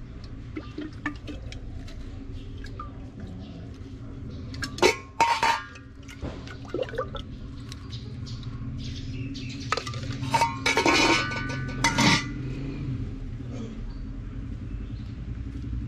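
Stainless steel dishes and a serving spoon clinking at a street food cart as food is served. There are a few sharp, ringing clinks about five seconds in and a busier cluster between ten and twelve seconds, over a steady low background rumble.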